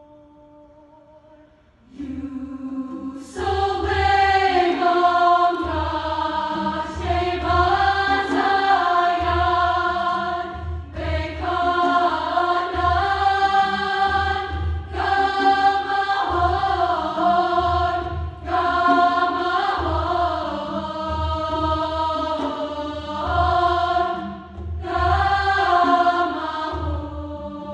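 A large women's choir singing in long phrases. The choir comes in together about two seconds in after a quiet start, over a low, pulsing accompaniment.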